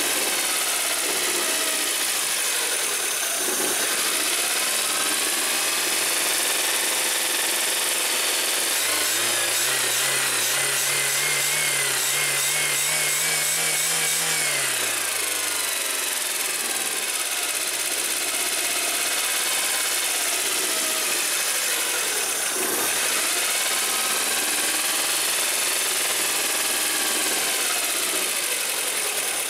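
Carburetted four-cylinder engine of a VAZ-2110 running with a steady hiss, revved up by hand at the carburettor about nine seconds in, held for several seconds, then let back down to idle.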